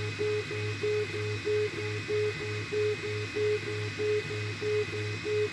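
Snapmaker A350T 3D printer printing: its stepper motors sound a short tone about three times a second as the print head runs back and forth, with a steady faint high whine underneath.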